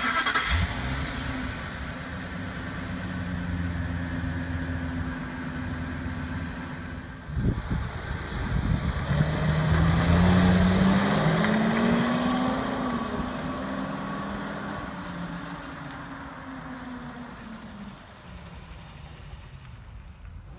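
Ford F-450's 6.8-litre gas V10 idling steadily, then the truck pulls away and drives past, the engine note rising as it accelerates and then fading into the distance.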